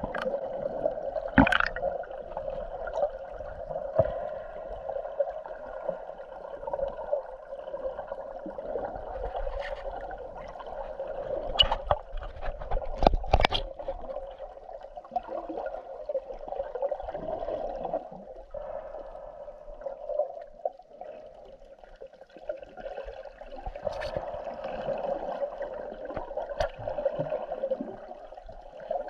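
Underwater sound picked up by an action camera in a waterproof housing: a steady, muffled watery noise, with a few sharp clicks and knocks, clustered about halfway through.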